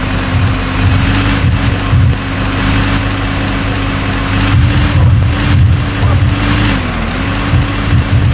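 JCB 3DX backhoe loader's diesel engine running at steady revs, with a brief dip in pitch near the end before it picks back up.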